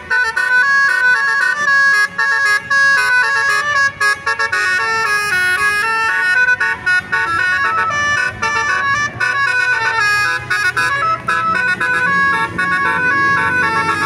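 Basuri telolet bus horn, a set of electrically switched air-horn trumpets, playing a fast stepping melody of high notes in short phrases with brief breaks between them.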